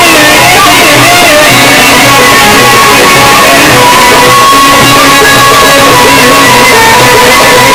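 Live Egyptian Sufi inshad ensemble playing: frame drums and a string instrument under a wavering melodic line, loud and continuous.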